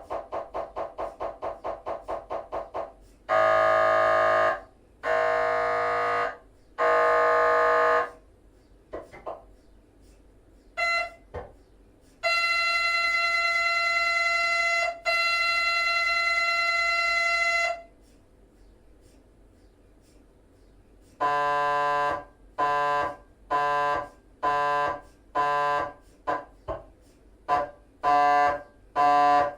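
GE 3 tesla MRI scanner's gradient coils at the start of a T1 axial FSPGR 3D sequence: fast ticking at about five a second, then three loud buzzing tones, a long steady tone, a pause of a few seconds, and a run of short buzzes about one a second.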